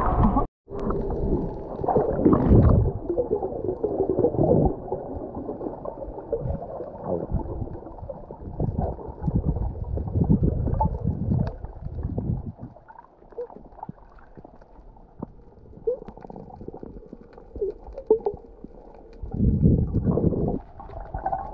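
Muffled underwater water noise: gurgling and sloshing with irregular small knocks. It is louder at the start and again near the end.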